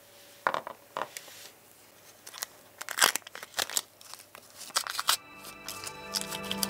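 Masking tape being peeled off a hard plastic model-car interior part and crumpled, a run of irregular short rips and crinkles. Music comes in about five seconds in.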